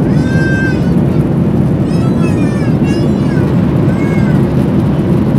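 Steady, loud cabin roar of a Boeing 737-800 heard from a window seat. Several short, high, wailing cries come through over it at intervals.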